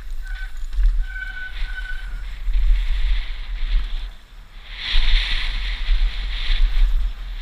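Santa Cruz V10 downhill mountain bike running fast down a dusty trail, heard from a helmet camera: steady wind rumble on the microphone under the hiss and crunch of tyres on loose dirt and gravel. A few short high squeals come in the first two seconds. The tyre noise drops away briefly about four seconds in, then returns louder.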